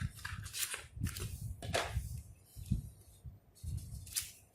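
Paper and cardboard packaging of a small SSD retail box being handled and rummaged through: irregular rustling and scraping with soft knocks.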